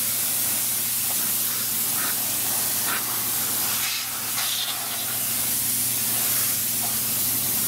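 Can of compressed air spraying in a steady hiss, blowing dust out of the inside of a computer; the can is nearly empty.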